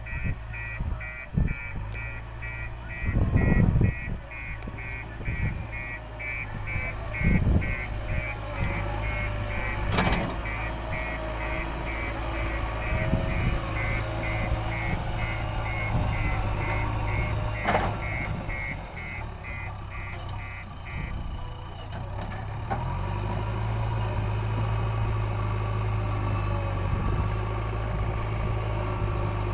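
JCB 3DX backhoe loader's diesel engine running while its reversing alarm beeps about twice a second, with a few sharp knocks. The beeping stops about 21 s in, and the engine then runs steadier and louder.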